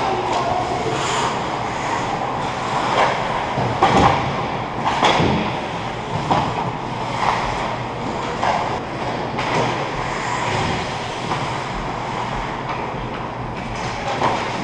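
Ice hockey play in an ice rink: a continuous din of skates on the ice, with sharp clacks of sticks and puck, echoing in the arena. The loudest knocks come about four and five seconds in.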